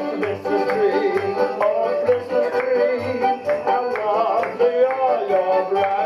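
Instrumental passage of a Christmas song medley played from a recorded backing track, with a steady beat under a melody line.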